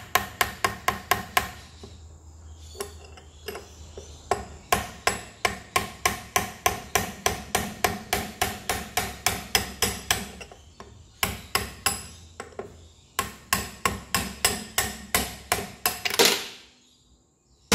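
Steady run of light hammer taps, about three a second, on a blunt chisel or drift driving the old tripod joint off the splined end of a driveshaft, steel ringing on steel. Near the end there is one louder, longer scrape as the tripod comes free of the splines.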